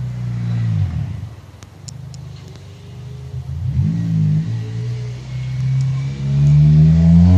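A motor vehicle's engine running, its pitch dropping twice and then rising and getting louder near the end as it accelerates.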